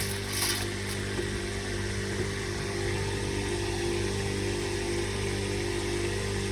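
Grass-chopping machine's motor running steadily with a constant hum, the cutter spinning with no material being fed; a crunching of chopped leaves stops within the first second.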